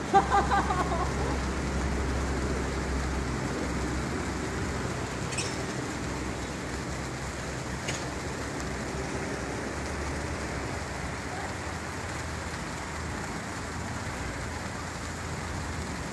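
Niagara Falls waterfall firework, a row of hanging pieces, giving a steady hiss as it pours a curtain of sparks. There are a couple of faint clicks partway through.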